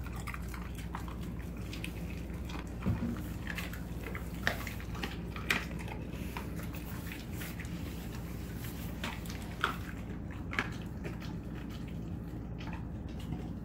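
Alaskan Malamute chewing raw meat and bone, with sharp crunches every second or so over the first ten seconds or so, then stopping. A steady low hum runs underneath.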